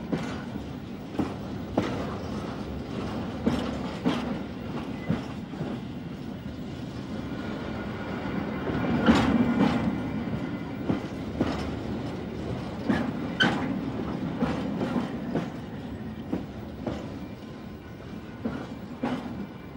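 Railway train rolling along the track: a steady rumble with irregular clacks and knocks from the wheels, swelling louder about halfway through.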